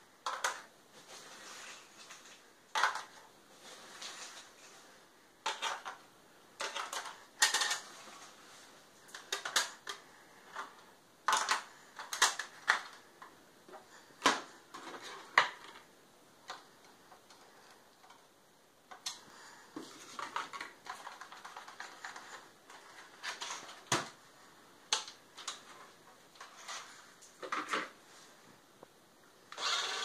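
Irregular sharp clicks, taps and rattles of hard plastic as a radio-controlled toy car is handled underside-up. Near the end its small electric drive motor starts whirring steadily.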